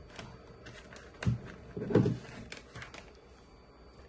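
Light handling knocks and clicks: two dull thuds, one about a second in and one about two seconds in, then a few quick light clicks, from a cordless phone handset being handled.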